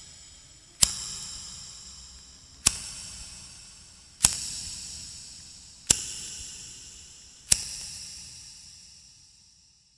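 Lighter clicking: five sharp clicks, each followed by a high ringing that fades before the next, the last one dying away to silence.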